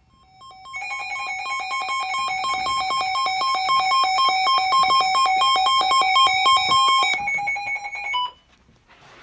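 Emergency weather alert radio sounding its alarm: a rapid, loud electronic beeping of alternating high tones for about seven seconds, announcing a severe thunderstorm warning, cutting off suddenly and followed by one short beep.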